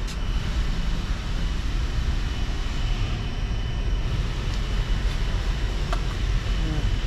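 Steady low rumble of outdoor background noise with a faint, constant high whine over it, and a few light clicks.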